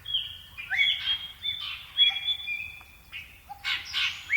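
Birds chirping: a run of short, clear whistled calls, several overlapping at different pitches.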